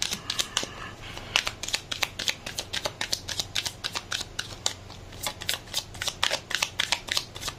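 A deck of tarot cards shuffled by hand in an overhand shuffle: a quick, irregular run of light card slaps and flicks, several a second.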